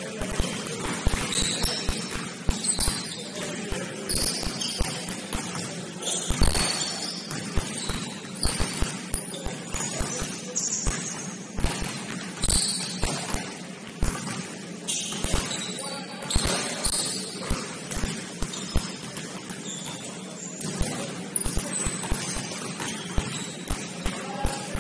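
Basketball game play: a basketball bouncing again and again on the gym floor, with short high squeaks of sneakers and scattered voices.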